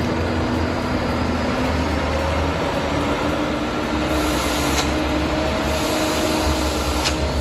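Heavy log truck's diesel engine running steadily under load, a deep rumble with a steady drone, and two light clicks in the second half.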